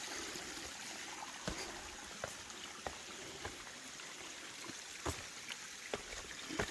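Rain runoff trickling down a rocky trail, a steady wash of running water, with scattered sharp knocks of footsteps on the rock.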